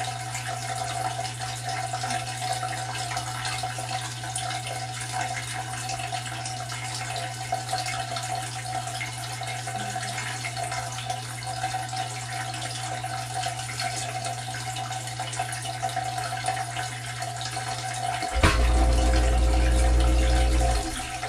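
KitchenAid KDTM604 dishwasher filling with water, a steady hiss of running water over a low valve hum. About 18 seconds in, the wash pump starts with a much louder low drone and sends water over the lower spray arm, then stops abruptly about two and a half seconds later.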